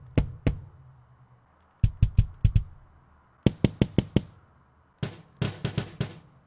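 Unprocessed sampled PDP X7 22-inch kick drum, played in short runs of four or five quick hits with a pause between runs. Each run is heard through a different soloed close microphone. The last run, through the mic aimed at the snare wires, sounds brighter.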